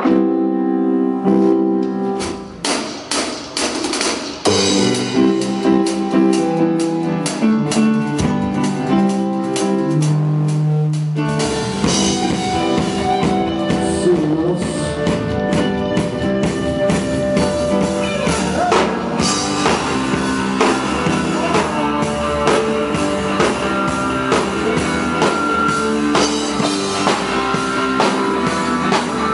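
Live band playing during a sound check: keyboard chords first, then from about eleven seconds in the full band joins with drum kit and guitar.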